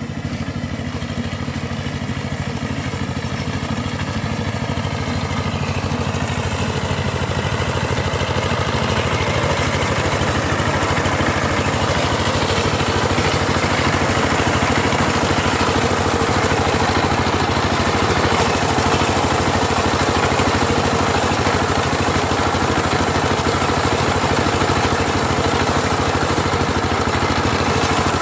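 Small combine harvester running steadily as it cuts wheat. Its engine and machinery grow louder over the first ten seconds or so, then hold steady.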